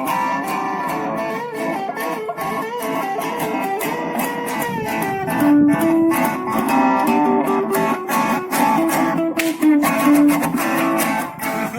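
Guitars on a street guitar bike playing an instrumental break without singing: strummed chords with a picked, moving melody line over them.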